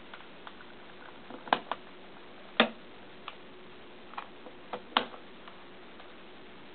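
Sheng En Type F-II 3x3x3 puzzle cube being turned by hand: irregular plastic clicks and clacks as its layers turn, with a few sharper snaps about a second and a half, two and a half, and five seconds in, over a faint steady hum.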